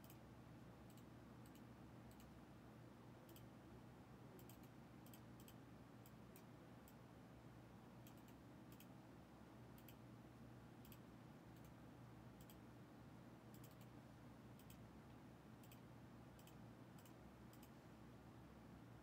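Faint, irregular clicks from a computer mouse and keyboard over a low, steady room hum.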